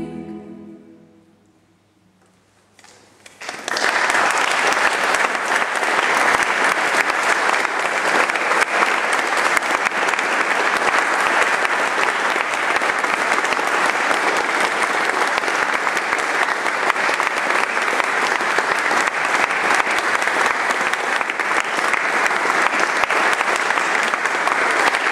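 The last chord of a choir with piano fades out, a couple of seconds of near silence follow, then audience applause breaks out about three and a half seconds in and goes on steadily.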